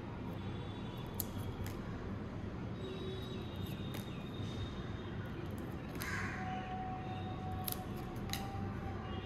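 Trading cards being handled and flipped, with scattered light clicks over a steady low background hum. A bird calls once, harshly, about six seconds in.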